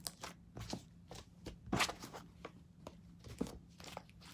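Irregular sticky crackles and clicks of slime being handled and squeezed, with louder pops about two seconds in and again past the three-second mark.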